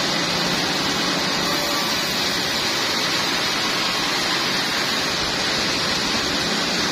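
Sawmill saw cutting trembesi wood, a steady even hiss that holds the same level and pitch throughout.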